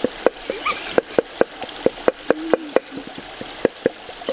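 Sharp, short knocks repeating at a steady rate of about four a second.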